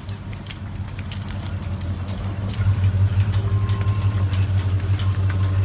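A truck engine idling with a steady low hum that gets louder about two and a half seconds in, with raindrops pattering and clicking over it.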